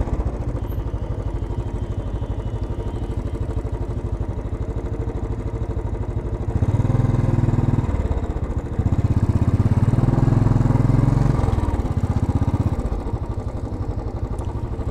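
Royal Enfield single-cylinder motorcycle engine running with a steady pulsing beat. It grows louder for a second or two about halfway through and again for a couple of seconds shortly after, as it is given throttle, then settles back.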